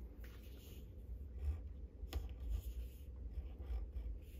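Pencil tracing letters on the paper page of a small printed booklet: faint, uneven scratching with a light tap or two.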